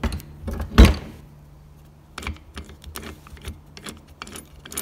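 Metal parts of a Tesla open differential being handled on a workbench: one heavy thud about a second in, then a run of light metallic knocks and clicks.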